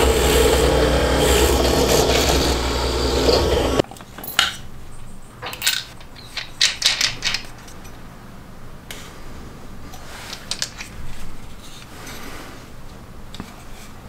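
Bench drill press running and drilling into a block of wood, a steady motor hum under cutting noise, which stops suddenly about four seconds in. Then a series of light clicks and taps from handling small wooden and metal parts.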